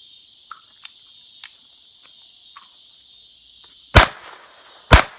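Two shots from a Ruger SR22 .22 pistol, about a second apart near the end, each sharp and loud. Steady insect chirring throughout, with a few faint clicks in the first second and a half.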